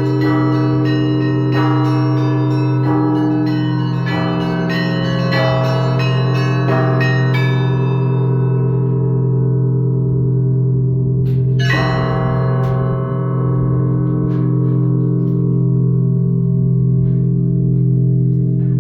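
Russian Orthodox bell ringing on a monastery belfry: quick strikes on the small bells over the steady hum of the large bells. The small bells stop about seven seconds in, one loud strike comes near twelve seconds, and then the deep bells ring on under a few light strikes.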